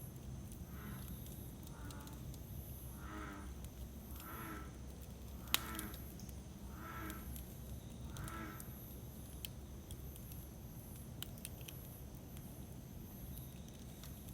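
Campfire crackling with scattered small pops and one sharp, louder pop about five and a half seconds in. A crow caws about eight times in the background.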